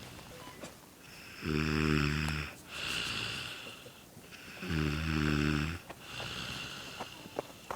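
Snoring: two deep breaths, each a low, buzzing snore lasting about a second followed by a long breathy hiss.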